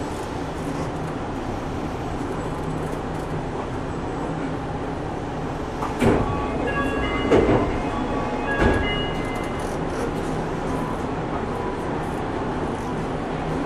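Steady running noise inside a Yui Rail 1000-series monorail car as it pulls into a station and stands there; about six seconds in come a few thumps and a short electronic chime.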